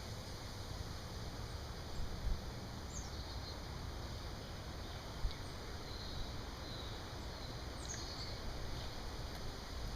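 Steady outdoor background noise with a few short, high bird chirps, about three seconds in and again near eight seconds.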